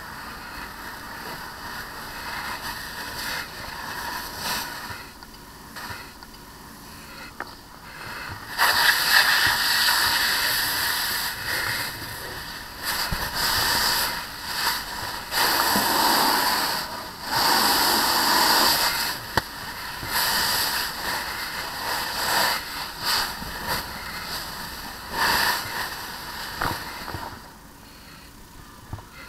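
Fire hose nozzle spraying water onto a burning car, a hiss of water and steam. It comes in loud spells with short breaks from about a third of the way in, easing off near the end.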